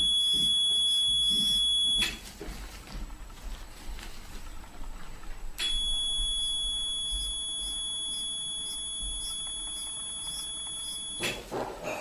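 Electrocautery unit giving a steady high-pitched beep while its pen electrode is energised on a mole: the tone marks the device firing. It sounds for about two seconds, stops, then sounds again for about six seconds.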